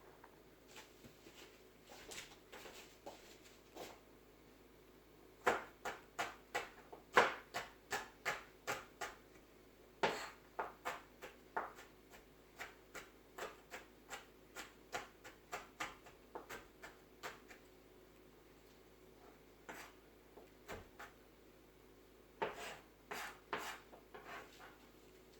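Knife chopping on a cutting board in runs of quick, evenly spaced strokes, about three a second, with pauses between the runs.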